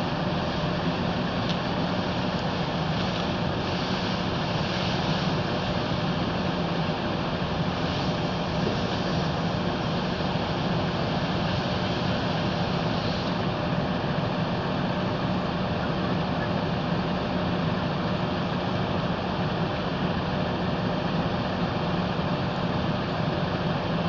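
A steady, unchanging mechanical rumble with a hiss over it, like a large engine running, for the whole stretch.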